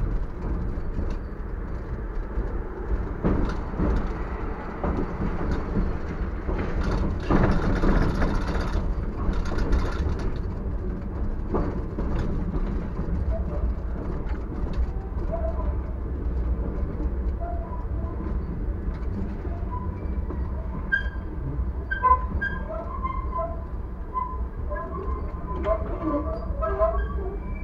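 A TW6000 tram running along the track: a steady rumble of wheels on rails and the running gear, with a louder hissing stretch about a quarter of the way in. Short high chirps are scattered over it in the second half.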